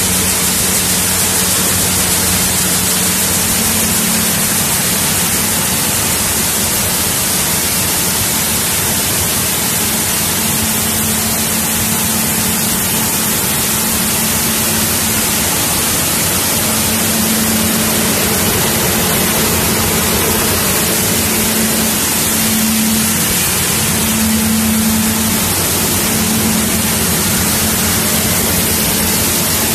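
Soybean cleaning line machinery running: a loud, steady rushing noise with a low motor hum underneath that swells and fades in the second half.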